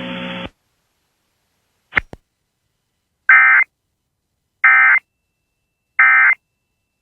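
Emergency Alert System end-of-message data burst: three short, identical bursts of warbling digital two-tone data sent about 1.3 s apart, marking the end of the alert. They come after a steady radio hum that cuts off about half a second in, then a pair of faint clicks.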